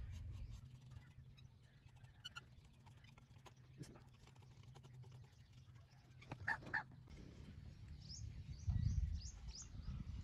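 Quiet outdoor ambience with a low rumble: a short animal call about six and a half seconds in, then a few quick high bird chirps, with a louder low rumble near the end.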